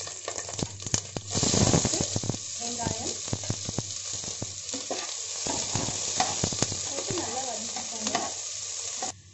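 Chopped onions and green chillies sizzling in hot oil in a pressure cooker. The sizzle swells loudly about a second in as the onions go in, and a perforated steel skimmer scrapes and clicks against the pot as it stirs. The sound cuts off suddenly just before the end.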